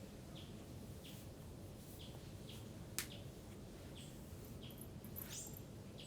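A small bird chirping repeatedly, with short falling chirps about every two-thirds of a second, over a low steady background hiss. A single sharp click about halfway through.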